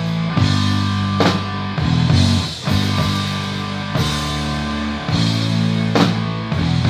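Hard rock band playing: sustained electric guitar and bass chords over drums, with a few cymbal crashes.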